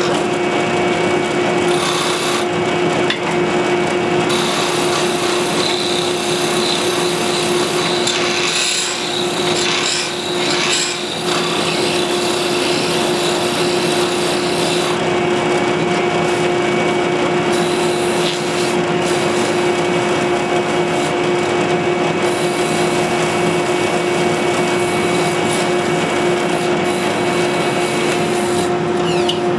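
Steel file rasping against a wooden wheel spinning in a drill press, rounding its edge, over the steady hum of the drill press motor.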